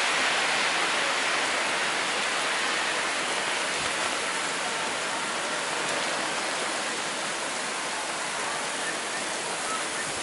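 Heavy thunderstorm rain pouring down on a city street and buildings, a dense steady hiss that eases slightly over the seconds.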